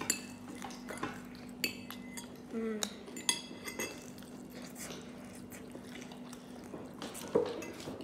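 Close-up eating of fried chicken: biting and chewing with many short wet clicks and crackles from the mouth, busiest in the first few seconds and thinning out after.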